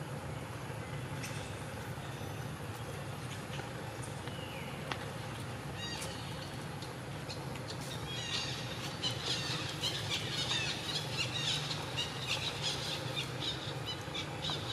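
Birds chirping: a dense run of rapid, high chirps from about eight seconds in, with a few scattered calls before, over a steady low hum.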